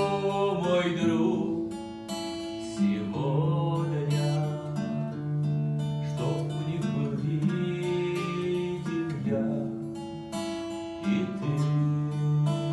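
Music with an acoustic guitar playing plucked and strummed chords that change every few seconds.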